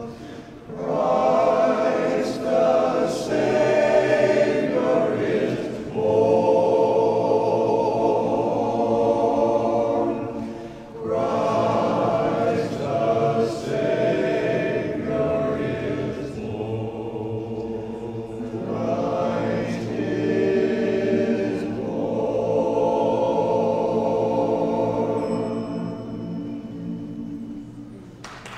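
Men's chorus singing unaccompanied in harmony, in phrases of a few seconds with short breaths between, the final chord dying away near the end.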